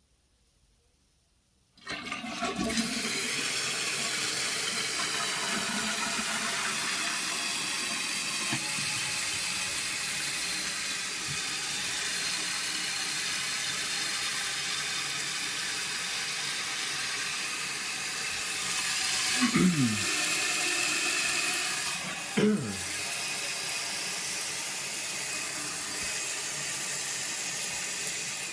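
1995 Mansfield Alto toilet flushing and its tank refilling: water rushes in suddenly about two seconds in and runs steadily for over twenty seconds, with two brief falling tones about three-quarters of the way through, then stops suddenly at the very end as the tank fills.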